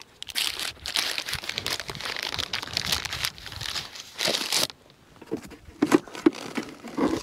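Paper wrapping of a bee pollen patty crinkling as it is handled, a dense crackle for about four and a half seconds, then a few lighter rustles near the end.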